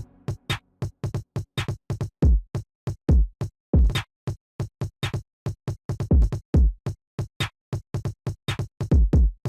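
Electronic background music: a fast drum-machine beat of short, clipped hits with heavy kick drums, separated by brief silences.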